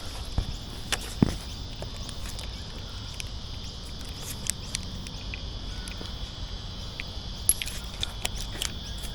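A steady high-pitched insect chorus, with scattered short clicks and a few soft thumps from handling or footsteps, heaviest about a second in.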